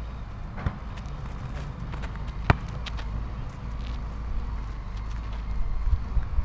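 A few sharp knocks of a footvolley ball being struck or bouncing on the concrete court: a lighter one under a second in and the loudest about two and a half seconds in. Under them runs a steady low rumble.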